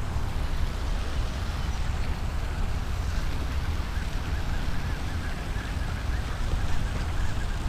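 Rain falling, heard through a GoPro's microphone as a steady hiss over a constant low rumble.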